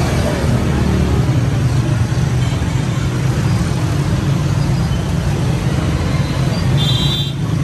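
Loud, steady low mechanical drone with street noise, like running engines or machinery. A brief high-pitched tone sounds near the end.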